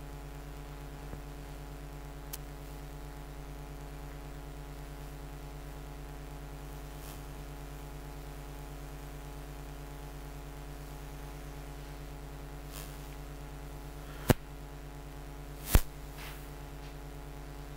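Steady electrical mains hum: a low buzz made of many fixed, even tones. Two sharp clicks stand out near the end, about a second and a half apart.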